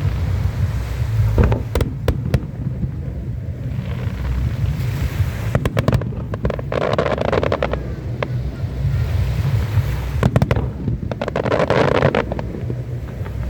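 Fireworks going off in clusters of sharp cracks and bangs, with two longer hissing, crackling swells, over a steady low rumble.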